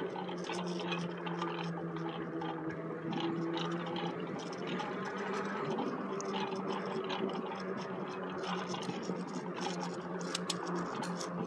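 Electric bike in motion: a steady low hum with a rush of tyre and wind noise, and small scattered clicks and knocks from the camera being held in the hand.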